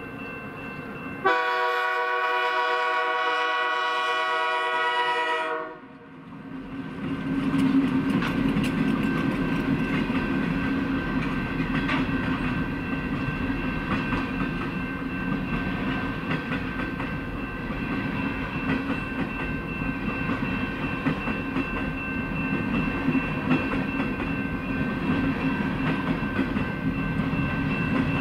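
Diesel freight locomotive's horn sounds one long, steady chord blast for the level crossing, cutting off after about four seconds. About a second later the locomotives and a string of tank cars and covered hoppers roll past with a loud, steady rumble and light wheel clatter, a thin steady ringing tone running over it.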